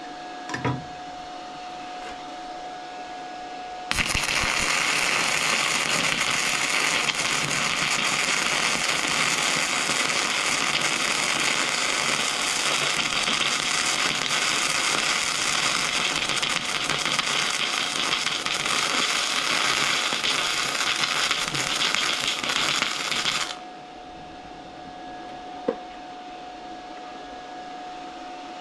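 Flux-core welding arc from a MIG145 Pro 110-volt welder feeding .030 flux-core wire on 1/4-inch steel plate: a dense, steady crackling hiss that starts abruptly about four seconds in and cuts off about twenty seconds later as the bead ends.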